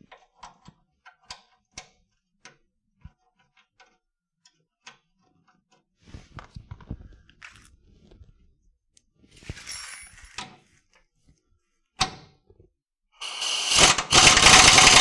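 Scattered small metallic clicks and knocks of a bolt and hand tools being worked against an engine bracket, with a couple of brief scrapes. Near the end a pneumatic wrench starts up, loud and rapidly hammering, as it drives the bolt in.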